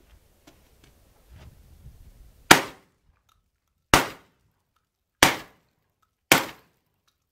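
JTS AK-style 12-gauge semi-automatic shotgun firing four shots in quick succession, a little over a second apart, each one cycling and feeding the next Winchester Universal shell without a hitch. A few faint clicks come before the first shot.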